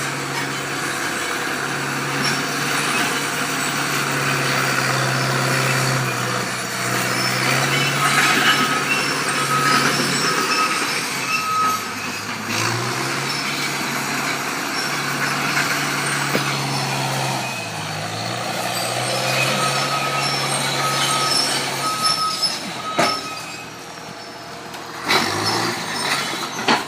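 Dresser TD-8E crawler dozer's diesel engine running hard as it pushes millings, its note dipping and recovering a few times as the load changes. A reversing alarm beeps in two spells of a few seconds each.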